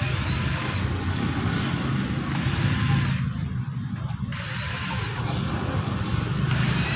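Small cordless screwdriver backing screws out of an electric fan motor's housing: its motor whirs up in short runs of about a second, three times, each starting with a rising whine. A steady low hum lies underneath.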